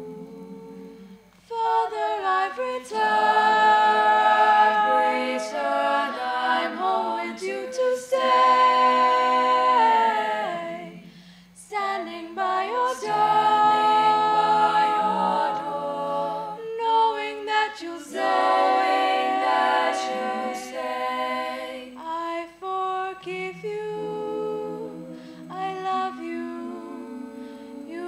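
A choir singing a cappella, unaccompanied. It starts soft, like humming, and swells into full voice about a second and a half in, with a brief pause between phrases near the middle.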